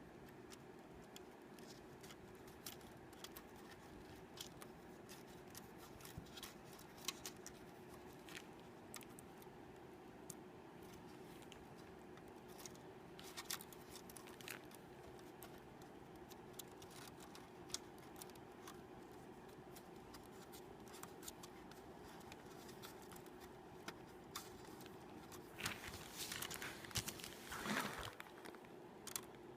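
Faint scattered clicks and scrapes of small parts and aluminium foil being handled, with a louder crinkling rustle near the end, over a faint steady hum.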